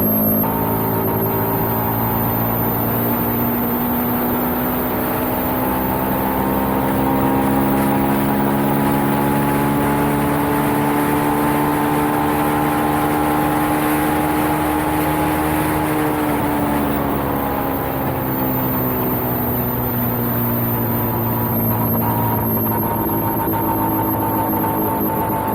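Suzuki SV650X's 645 cc V-twin engine running at road speed, its pitch climbing slowly and steadily as the bike accelerates, then dropping about sixteen seconds in as the throttle is eased off and falling gently after that.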